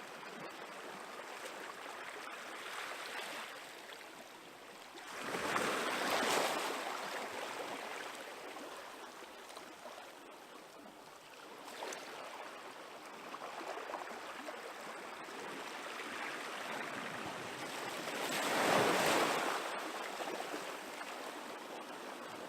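Small waves of a calm sea washing onto a beach: a steady hiss of surf, with two louder waves breaking and washing up, about five seconds in and again near the end.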